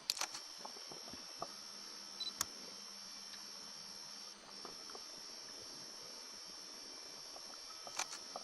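Faint, steady high-pitched drone of night insects, broken by a few short sharp clicks at the start, a couple of seconds in and near the end.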